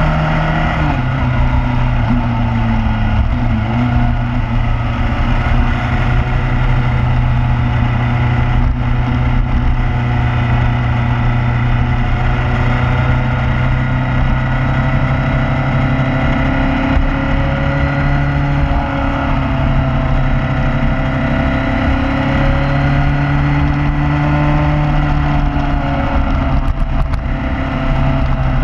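Motorcycle engine running at cruising speed on the road, its note drifting gently up and down, with a steady rush of wind on the microphone.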